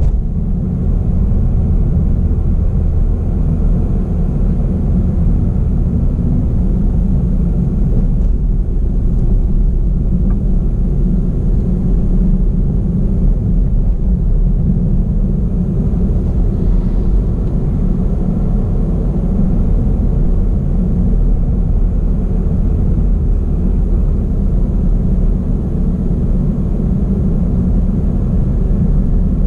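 A car driving on an asphalt road, giving a steady low rumble of engine and tyres that holds an even level throughout.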